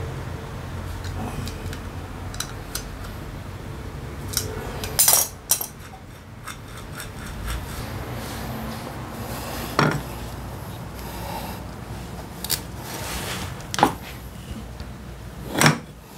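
Metal tools and starter-motor parts clinking and scraping against each other, a handful of sharp metallic clinks over a steady low hum. The loudest clinks come about five seconds in and near the end.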